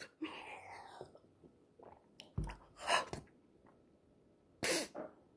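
A person sipping from a small glass and swallowing, then a few soft mouth and breath sounds and a dull knock about halfway through.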